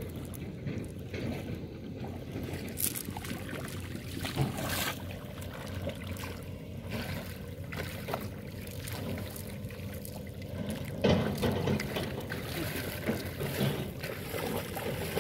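Shallow river water splashing and trickling as a cast net is lifted, shaken and gathered up in the water, with a louder stretch about eleven seconds in.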